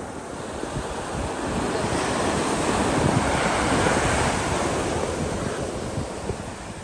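Sea surf washing in: one wave's rush swells over a couple of seconds and then falls away, with wind buffeting the microphone.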